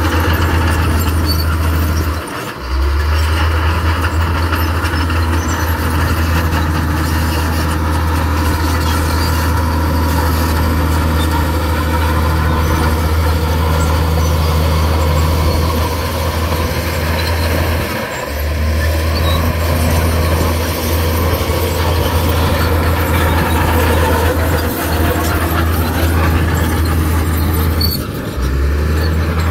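Diesel engine of heavy earthmoving machinery running steadily under load, a deep hum with clattering and grinding noise over it. It drops out briefly three times, about two and a half seconds in, midway and near the end.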